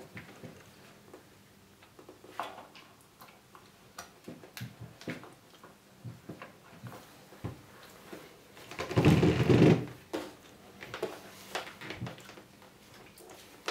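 Handling noise of a plastic smart display and its power cable on a desk: scattered light clicks and taps as the cable is plugged in and the unit is moved, with a louder rubbing sound lasting about a second roughly nine seconds in.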